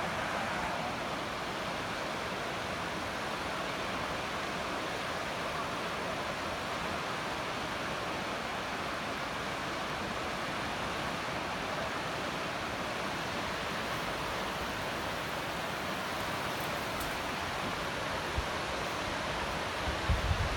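River rapids rushing in a steady, even roar of water. A few short low thumps come near the end.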